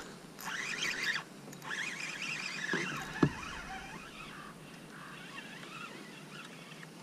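Spinning reel being cranked as a hooked fish is reeled in, with one sharp knock about three seconds in.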